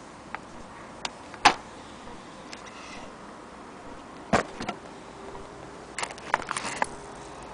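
Scattered clicks and knocks of small plastic and metal parts being handled: the sewing machine's plug and cord, then metal sewing-machine attachments clinking. There are two sharp knocks, about a second and a half in and about four seconds in, and a quick run of small clicks near the end.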